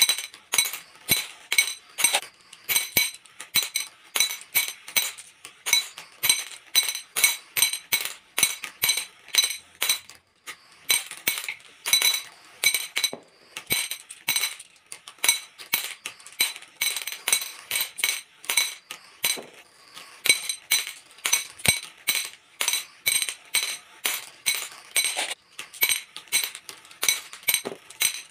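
Glass marbles running down plastic channels and dropping one after another into glass bowls of marbles, clinking sharply against the glass and each other with a ringing tone, several clinks a second in an uneven stream.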